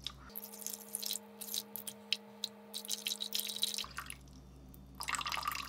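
Water poured from a plastic bottle into a stainless steel bowl, splashing unevenly, then thinning to a trickle and drips.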